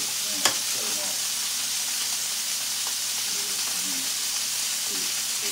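Lamb chops searing in a hot skillet with a steady, high sizzle. A single sharp click of metal tongs against the pan comes about half a second in as the chops are turned.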